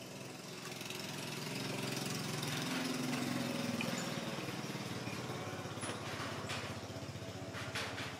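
An engine running, growing louder over the first few seconds and then easing off, with a few faint clicks near the end.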